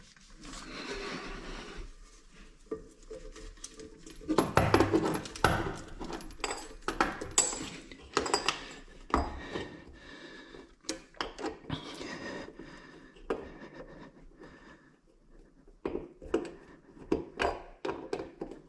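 Hard parts being handled and fitted by hand: a string of sharp clinks, taps and knocks with rubbing and scraping between them, busiest about four to six seconds in and again near the end.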